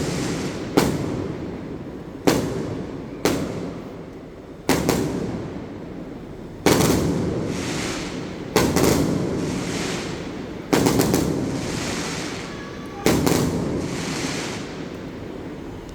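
Fireworks bursting overhead: about eight sharp bangs one to two seconds apart, some in quick pairs, each fading away in a long echo.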